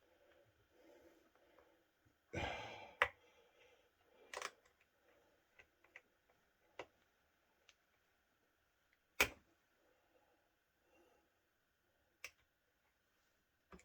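Scattered clicks and knocks of tools and the plastic housing of a Stihl FS40 strimmer being handled during disassembly, with a short scraping rustle about two seconds in and a few sharp clicks spread through.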